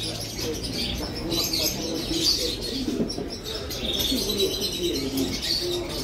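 Caged birds calling: short low notes overlapping with higher chirps and twitters.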